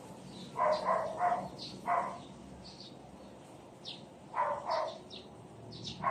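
Outdoor animal calls: short, fairly loud calls in quick groups of two or three (about a second in, around two seconds, around four and a half seconds and at the end), with thin, high bird chirps between them.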